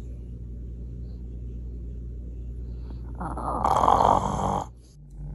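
French bulldog snoring in its sleep: one long, loud snore starting about three seconds in, over a steady low hum.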